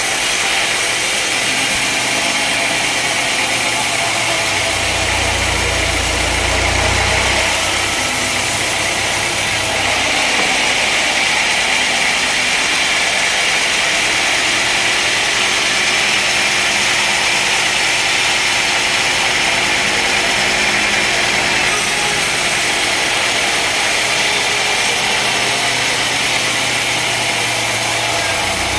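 Sawmill machinery running steadily: a loud, even mechanical noise, with a deeper rumble coming in for a few seconds about five seconds in and again near the end.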